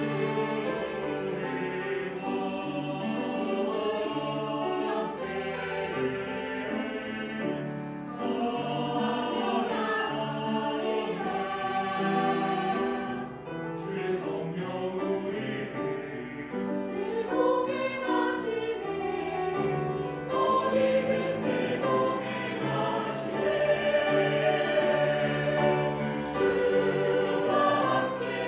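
Mixed choir of men's and women's voices singing a hymn in Korean, with several voices sounding together.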